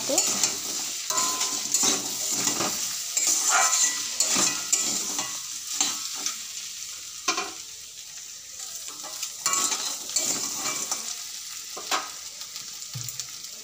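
Raw crabs and potatoes sizzling in spiced oil in a metal kadai while a spatula stirs and scrapes them against the pan in repeated strokes. The stirring thins out and the sizzle grows quieter in the second half.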